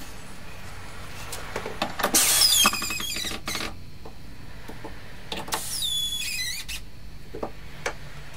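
Makita cordless drill driving screws into a wooden hanging-rail support block on a wardrobe side panel: two short runs, about two and five and a half seconds in, each a high motor whine that bends in pitch as the screw bites, with light knocks of the block and drill in between.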